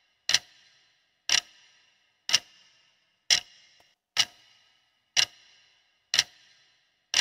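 Clock-tick sound effect counting down a quiz timer: one sharp tick each second, eight in all, each with a short ringing tail.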